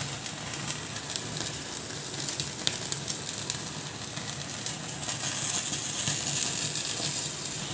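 Butter sizzling as it is spread with a spoon over a whole marinated chicken roasting on a wire rack over an open gas flame: a steady hiss with scattered small crackling pops, a little louder about five seconds in.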